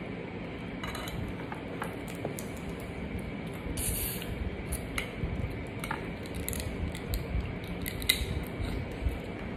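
Eating by hand: shrimp being peeled and eaten with small clicks and crackles of shell, and a short wet sucking slurp about four seconds in as a shrimp is sucked at the lips, over a steady background hiss.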